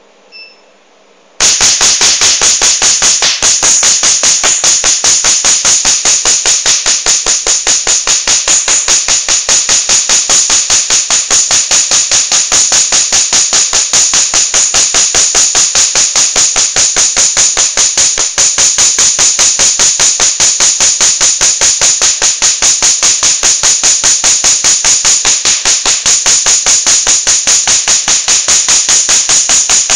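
Tattoo-removal laser firing a fast, steady train of sharp snapping clicks, pulse after pulse, with a faint beep just before it starts.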